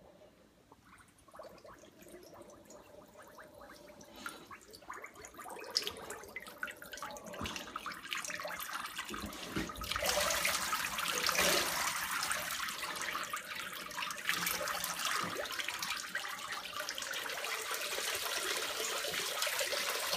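Water in a hydrographics dip tank sloshing and splashing as a snowmobile hood is pushed down through the floating print film and drawn back out. Faint at first, growing louder, with steady splashing from about halfway.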